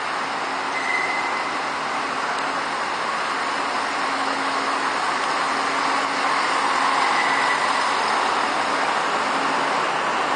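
Irish Rail 29000-class diesel multiple unit running past along the platform: a steady rumble of engines and wheels. A brief high whine comes about a second in and again around seven seconds, and the noise swells slightly as the carriages go by.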